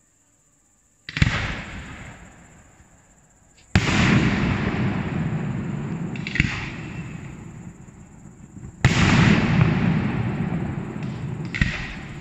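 Aerial firework shells going off with three loud bangs, about one, four and nine seconds in, and two smaller pops in between. Each bang trails a long rumbling echo off the valley that slowly dies away.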